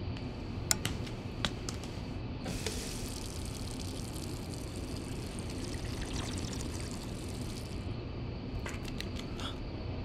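Tap water running into a sink for about five seconds, then stopping. Before it come a few light clicks and after it a short run of clicks, all over a steady low hum.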